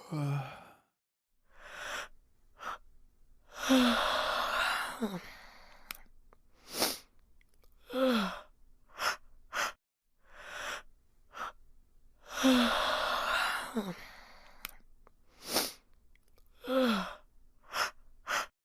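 A series of human yawns and breathy sighs. The two longest yawns last about a second and a half each, and several shorter ones end in a falling voiced tone. A few short, sharp breath bursts come in between.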